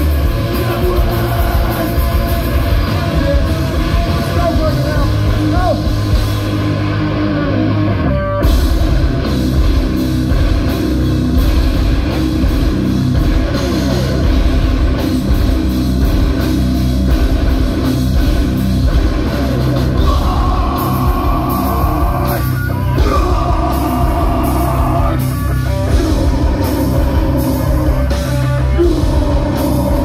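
Live heavy rock band playing loud, with distorted electric guitars, drum kit and vocals, heard from the crowd in front of an open-air stage.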